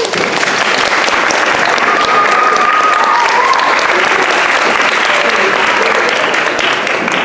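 Audience applauding steadily, with one held high cheer about two seconds in.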